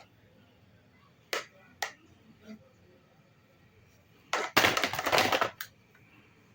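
Two sharp clicks half a second apart, then about a second of loud crackling, rattling noise that ends with a click.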